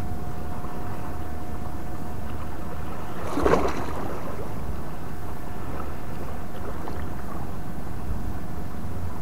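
Wind buffeting the microphone on an open shore, a steady low rumble, with one brief louder noise about three and a half seconds in.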